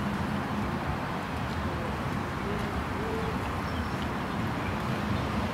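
Steady outdoor street ambience: a low hum of distant traffic under an even rush of noise. Two short, low bird calls come about halfway through.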